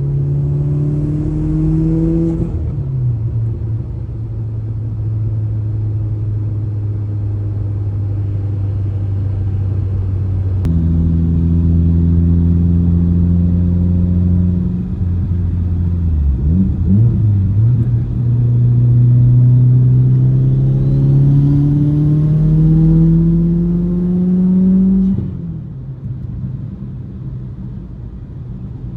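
Turbocharged 2.0-litre four-cylinder engine of a built 2008 Mitsubishi Lancer Evolution X pulling under acceleration. Its pitch climbs steadily over long stretches, with sudden steps at gear changes about 2, 11 and 16 seconds in. About 25 seconds in it drops to a lower, steady drone.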